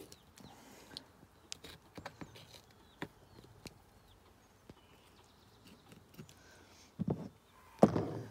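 Quiet, wet handling sounds of a raw whole chicken being cut apart with a knife at the leg seam: scattered small clicks, taps and squelches. Two louder bumps come near the end, and faint bird chirps sound in the background.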